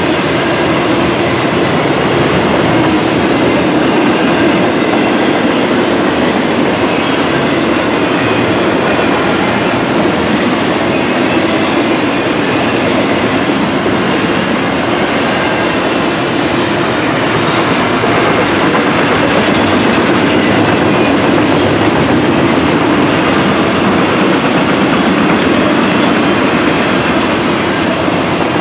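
Canadian Pacific double-stack container train's loaded well cars rolling past, a steady rumble of steel wheels on rail.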